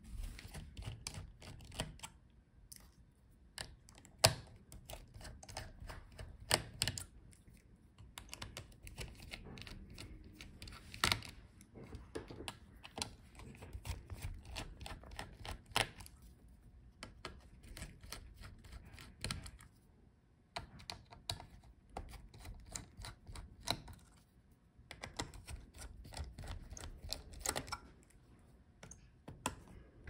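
A small screwdriver working the heatsink retaining screws out of a laptop motherboard: irregular light metal clicks and ticks from the bit and screws, with a few sharper clicks among them.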